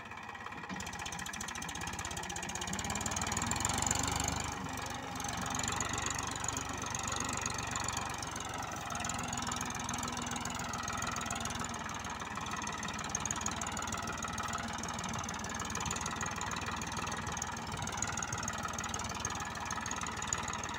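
Massey Ferguson 241 DI tractor's three-cylinder diesel engine running under load while it pulls a heavily loaded sugarcane trolley across soft field ground. It gets louder over the first four seconds, drops back briefly, then runs steadily.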